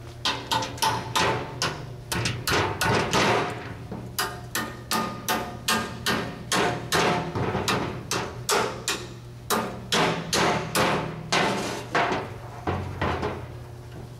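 Repeated hammer blows on a steel chisel wedged into the rusted flange joint of an exhaust pipe, about two or three a second with a couple of short pauses, each with a brief metallic ring. The joint is too rusted to unbolt, so it is being knocked loose to separate it.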